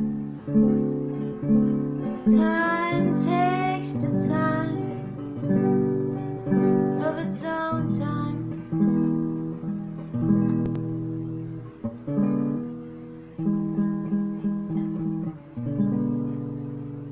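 Acoustic guitar played solo: chords strummed and picked in a slow pattern, each ringing out and fading before the next.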